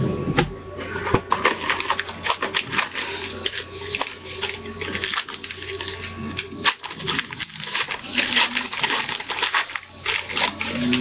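Hockey card pack wrapper being torn open and crinkled by hand, with the cards inside shuffled: a dense run of quick, irregular crackles, over a steady low hum.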